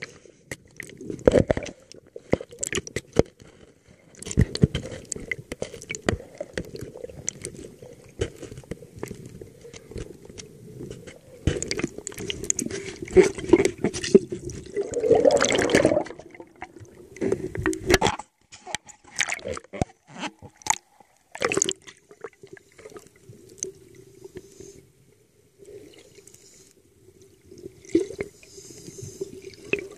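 Muffled underwater sound heard through a camera's waterproof housing: sharp knocks and clicks of the housing being handled, and bursts of bubbling from scuba divers' exhaled breath, over a low steady hum.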